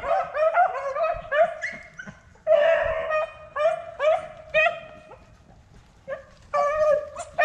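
Beagles baying: a steady string of short, high, ringing bays with a lull of about a second and a half near the end before the bays start again.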